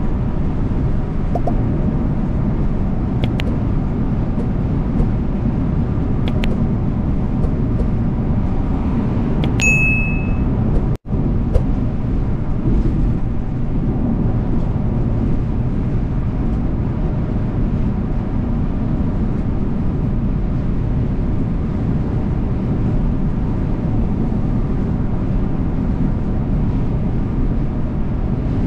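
Volvo B450R coach running at road speed: a steady low drone of engine and tyres. A short high ding sounds about ten seconds in, and the sound drops out for an instant just after it.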